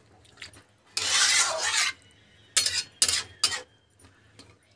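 Metal spatula stirring a watery curry in a metal kadai: a scrape through the liquid lasting about a second, then a few sharp knocks of the spatula against the pan.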